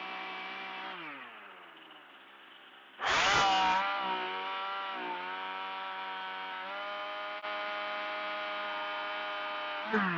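Chainsaw running, then its chain spinning down about a second in as the trigger is let go. About three seconds in it speeds up again with a short loud burst, runs steadily, and spins down again near the end.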